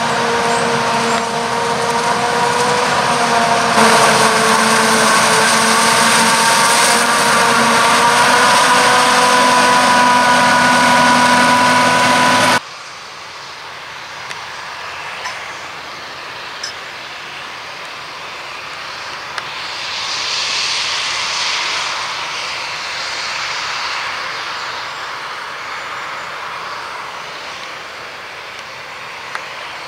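Claas Jaguar forage harvester running at full chop in standing maize: a loud, steady machine whine with several tones. It cuts off abruptly about 13 seconds in, leaving quieter, more distant machinery noise that swells and fades around the middle.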